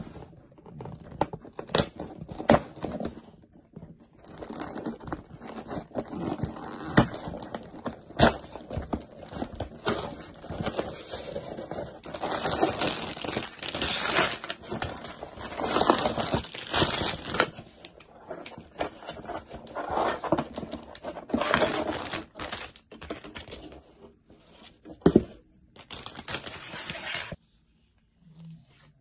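A LEGO set's cardboard box being torn open, then sealed plastic bags of LEGO bricks crinkling as they are lifted out and laid on a table, with sharp taps in between. The handling stops shortly before the end.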